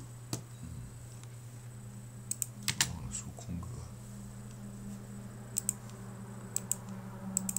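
Scattered computer keyboard keystrokes and clicks, a quick cluster of several about two and a half seconds in and single or paired ones elsewhere, over a steady low hum.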